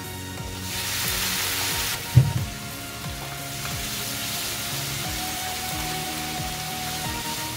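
Blended tomato paste hitting hot oil in a frying pan: a loud sizzle as it is poured in, settling to a steady sizzle as it is stirred with a wooden spoon. A single knock about two seconds in. Soft background music plays throughout.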